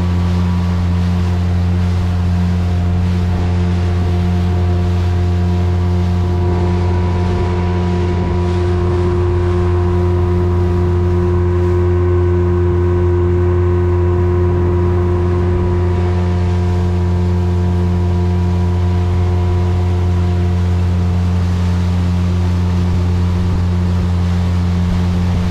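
Speedboat engine running at a constant speed, a steady unchanging drone.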